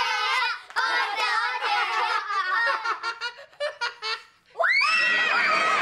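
Children laughing loudly together, breaking into short rapid ha-ha pulses past the middle. After a brief lull near the end, a louder laugh or shout cuts in, sweeping up in pitch.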